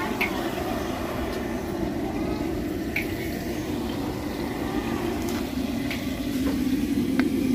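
A perforated metal ladle stirring gulab jamun in sugar syrup: liquid sloshing with a few sharp clinks of metal against the pan, over a steady low background noise.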